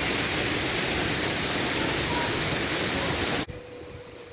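Loud, steady rush of a waterfall's falling water, cutting off abruptly about three and a half seconds in.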